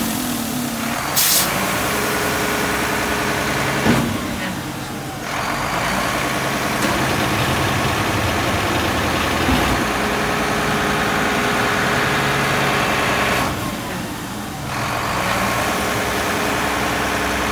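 McNeilus MSL side-loading garbage truck running with its engine held at raised speed to drive the hydraulic packer while it compacts a load, a steady drone of engine and hydraulics. The engine note drops back briefly twice, around four seconds in and again near the end, between packing strokes. A short air hiss sounds about a second in.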